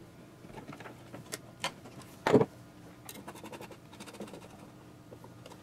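Small clicks and taps of wires being handled and fitted into a stepper driver's screw terminals, with one louder short knock a little over two seconds in.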